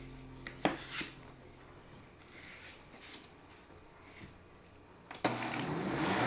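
A few sharp clicks as the lid is pressed onto a Cuisinart blender jar, then about five seconds in the blender motor switches on, its whir rising in pitch as it spins up through the jar of batter ingredients.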